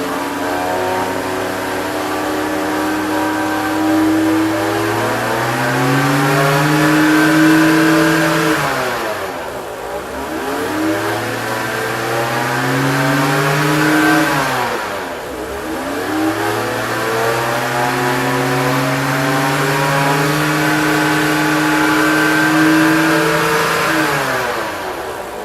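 BMW 325i straight-six engine running, its revs going up and falling back several times. The noise is taken to come from the pulleys, and the owner suspects the alternator or the guide (idler) pulley.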